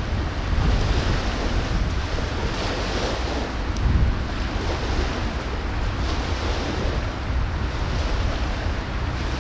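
Wind buffeting the microphone over a steady rush of water, with a heavy, uneven low rumble.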